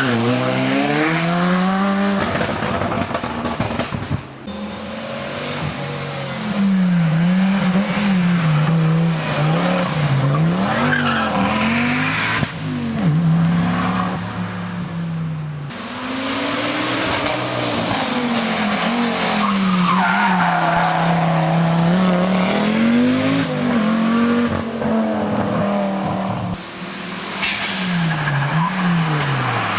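BMW M3 rally car engine driven hard along a stage, its revs climbing and dropping over and over through gear changes, with brief lifts off the throttle three times.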